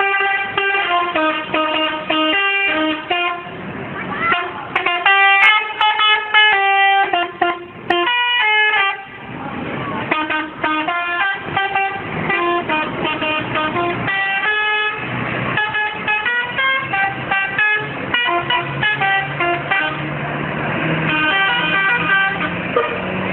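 A bus's telolet horn, a multi-trumpet musical air horn, playing a melody in short stepped notes, in runs with brief gaps. A low steady hum comes in about two-thirds of the way through.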